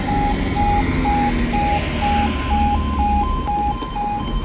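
Level crossing warning alarm sounding as the warning sequence begins with the amber lights, a tone pulsing about twice a second that, about two seconds in, starts alternating with a slightly higher tone. Under it, a car drives over the crossing.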